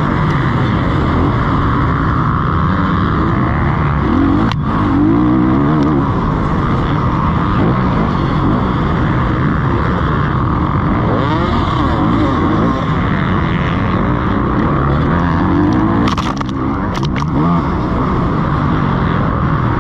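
Motocross bike engine heard close up from the bike as it is ridden hard, revving up and dropping off over and over through the gears, with wind rush. A sharp knock about four and a half seconds in and a couple more near the end.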